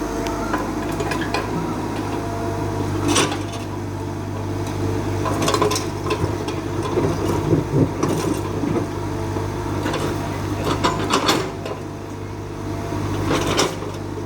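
Excavator diesel engine running steadily, with intermittent metallic clanks and knocks, about six over the span.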